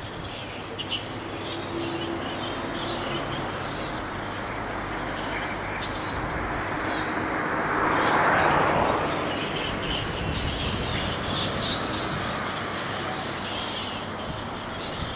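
A roosting colony of fruit bats calling: many short, high squeaks and chatters overlapping without a break. A passing vehicle swells and fades about halfway through.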